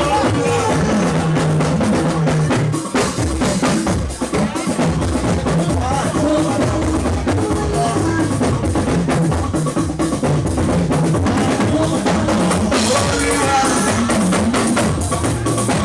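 Live band music driven by a drum kit keeping a steady beat, with bass drum, snare and rimshots under melodic lines.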